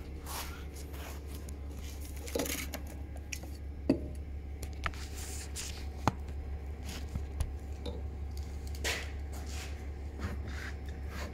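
Scattered clicks and knocks as a Solo backpack sprayer is handled on a steel workbench and its pump lever is worked to pressurise the tank, over a steady low hum.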